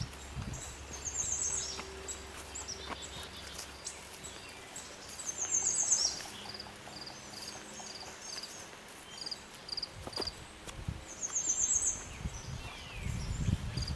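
Wild songbirds singing in woodland: a short, high, trilled phrase comes back every few seconds and is loudest about six seconds in, and a run of even, high notes follows at about two a second. Low rumbling thumps come near the start and again near the end.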